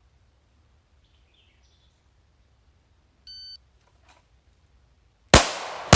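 Shot timer beeps once, about three seconds in. About two seconds later a Glock 19 9mm pistol fires two quick shots, roughly half a second apart, each ringing out after the crack; they open a timed three-shot string.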